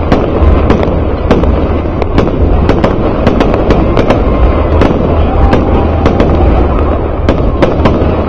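Aerial fireworks display going off non-stop: irregular sharp bangs and cracks, about three or four a second, over a steady deep rumble.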